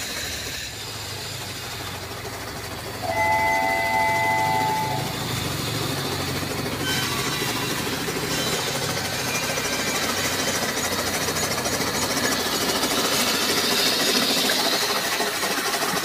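Toy steam-style locomotive running through shallow water: a steady hiss of moving water and a low motor hum, with the toy's several-note whistle sounding for about two seconds, three seconds in.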